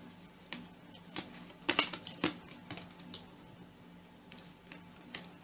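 Tarot cards handled and drawn from a deck by hand: a string of short, sharp flicks and taps, seven or eight spaced unevenly.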